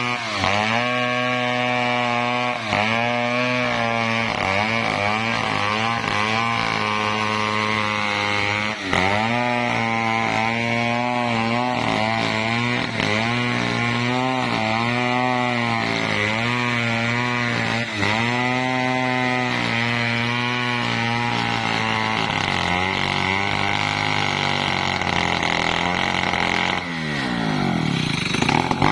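Stihl 070 two-stroke chainsaw ripping a teak log lengthwise at full throttle, its engine pitch sagging and recovering every few seconds as the chain bogs in the cut. Near the end the revs fall away steeply.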